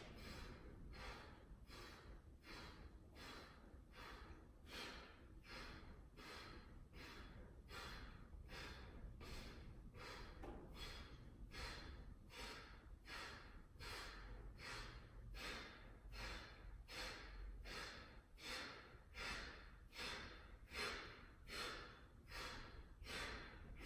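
A man's faint, rhythmic, hard breathing under exertion, a sharp breath about every three-quarters of a second, as he alternates dumbbell chest presses while holding a hip bridge.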